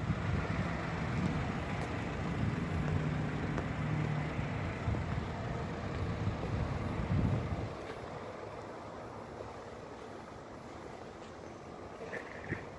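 A motor vehicle's engine and road noise, steady with a low hum, fading noticeably about eight seconds in.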